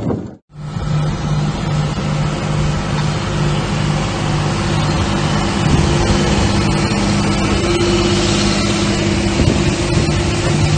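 Large diesel tractor engine running steadily under load while towing a heavy tracked vehicle, a low hum that pulses about twice a second. It starts after a brief gap about half a second in.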